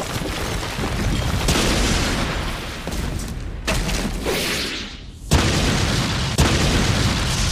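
Layered sound-design booms and crashing impacts with rumbling debris, dense and continuous. Sudden heavy hits land about three and a half, five and a quarter and six and a half seconds in, the middle one right after a short drop-off.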